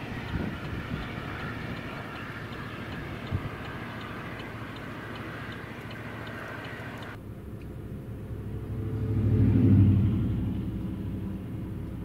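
Strong storm wind rushing, a steady noisy roar. About seven seconds in the sound abruptly turns duller, and a low vehicle rumble swells up loud and fades away, as a vehicle passes close by.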